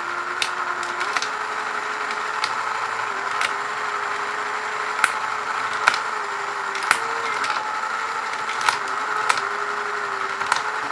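Tandy/Radio Shack Armatron toy robot arm's small electric motor and plastic gear train running with a steady whine that steps up in pitch about a second in. Sharp clicks come at irregular intervals as the controls are worked and the gears engage.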